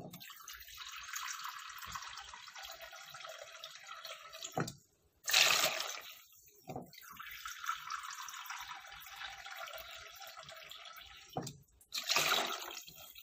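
Water running into a bowl for about four seconds, then a short loud splash as the bowlful is poured into a metal cooking pot; the same happens a second time. Water is being added to the pot bowl by bowl for a soup.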